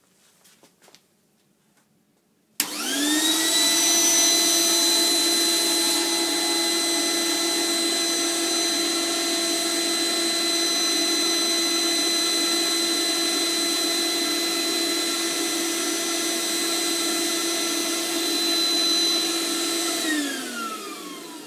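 Record Power RSDE1 dust extractor switched on, starting suddenly about two and a half seconds in and running loud and steady, a high whine over rushing air, at about 85 to 90 decibels in a small workshop. Near the end it is switched off and its motor winds down, the whine falling in pitch as it fades.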